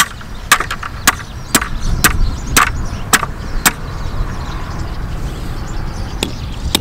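A claw hammer striking the wooden upright of a timber gate frame: a run of about eight sharp blows at roughly two a second, a pause of about two seconds, then another blow near the end.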